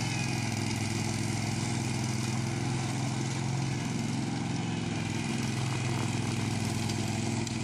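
Spider ILD02 remote-controlled slope mower's engine running steadily, a constant low drone.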